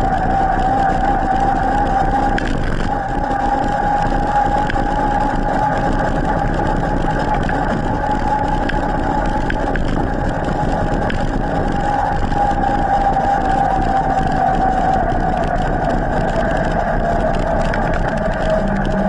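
Electric mountain bike's motor whining steadily at full Turbo assist, over rumbling tyre and wind noise; the whine's pitch sags a little near the end. A car passes near the end.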